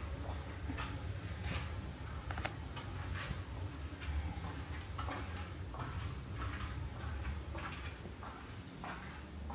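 Footsteps: light taps about once a second over a steady low rumble.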